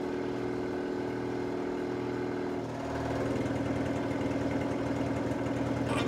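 Air compressor running steadily. About two and a half seconds in its tone changes, and it runs slightly louder after that.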